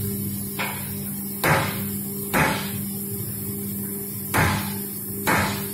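Paper plate making machine running: its electric motor hums steadily, while short knocks and clacks come at uneven intervals, about five times, as the dies press and the sheets and formed plates are handled.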